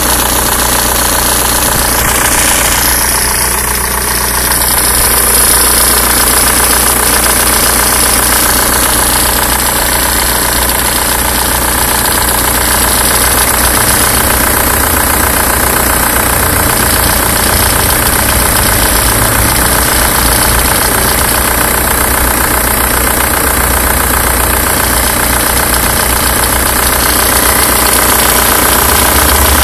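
Car engine idling on a cold start, with an extraneous noise from the alternator belt and its tensioner. The sound stays steady throughout.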